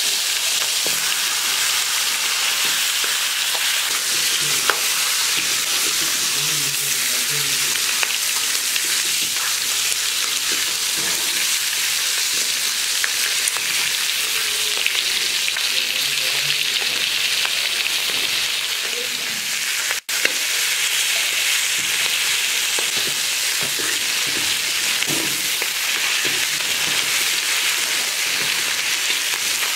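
Fish heads frying in hot oil: a steady sizzle with small scattered pops. The sound cuts out for an instant about twenty seconds in.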